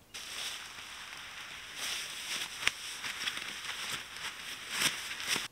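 A person climbing into a hammock over dry leaf litter: rustling and crunching of leaves and hammock fabric, with sharp crackles about two and a half seconds in and again near the end.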